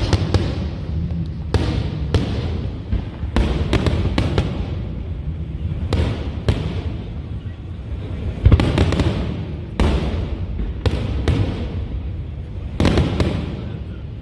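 Aerial fireworks bursting one after another: about a dozen sharp booms over a steady low rumble, each trailing off in an echo. The loudest burst comes about eight and a half seconds in.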